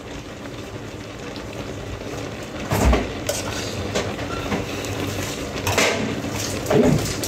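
A spoon knocking and scraping against a pan of cheese sauce, a few sharp clinks about three, six and seven seconds in, over a steady low hum.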